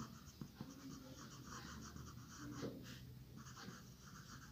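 Faint scratching of a pen writing on paper, in short irregular strokes as a word is written out.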